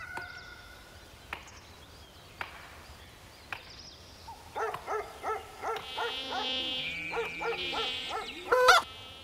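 Cartoon sound effects: a few faint clicks, then a buzzing like a flying insect over a run of short pitched calls, about two or three a second, ending in one louder call.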